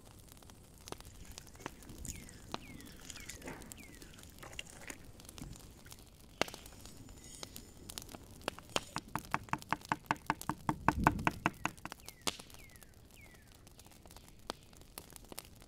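Kitchen knife chopping dill on a wooden cutting board: a quick, even run of knocks, about seven a second, lasting three or four seconds midway through, with scattered clicks of handling before and after.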